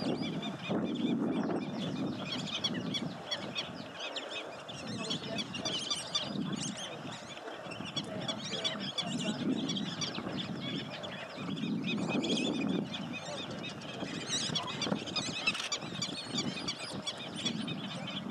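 Many birds chirping and calling together, over a low background rumble that swells and fades every second or two.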